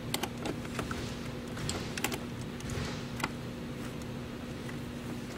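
Light plastic clicks and taps of a car's battery box cover being handled and fitted into place, a few scattered clicks over a steady low hum.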